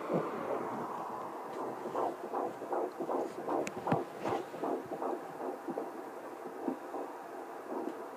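Fetal heartbeats of twins picked up through a handheld fetal Doppler: rapid whooshing pulses, several a second, over a steady hum. A couple of sharp clicks come about four seconds in.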